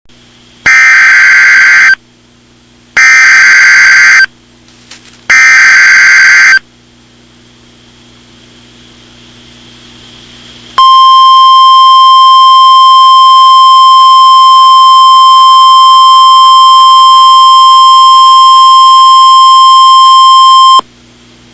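Emergency Alert System alert opening: three identical bursts of data screech about a second long each, a few seconds' pause, then the steady single-tone attention signal of NOAA Weather Radio held for about ten seconds before cutting off.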